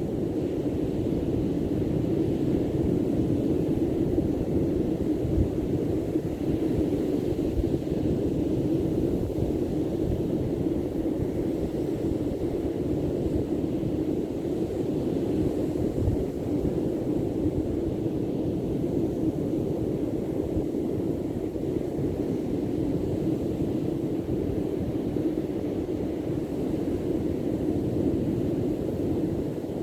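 Steady low rumbling noise of wind buffeting the microphone at the seashore, with the wash of the sea beneath it.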